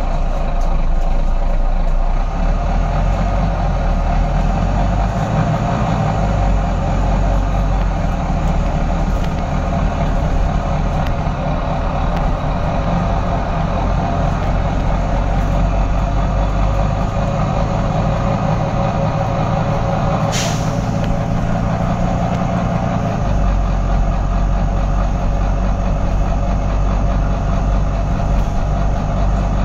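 Volvo B9TL double-decker bus's six-cylinder diesel engine and drivetrain running as the bus drives, heard from the upper deck. A short, sharp hiss of compressed air comes about two-thirds of the way through, and the low engine note changes a few seconds after it.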